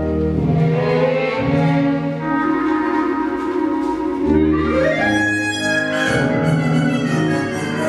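Instrumental music with long held notes; about halfway through a rising sweep leads into higher notes.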